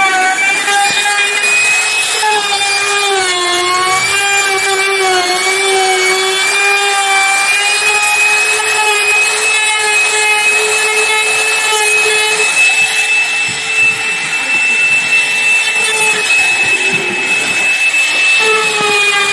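Compact electric trim router (DMP02-6) running at high speed and cutting into a wooden door to make a recess for a door lock: a steady high whine that sags in pitch as the bit bites into the wood, about three to five seconds in and again near the end.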